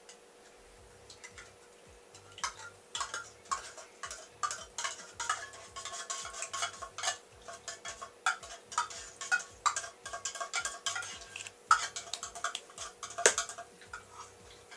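A spatula stirring and folding cubed pandan gelatin and young coconut in a glass bowl, with quick irregular clicks and clinks of utensils against the glass and a tin can, starting about two seconds in.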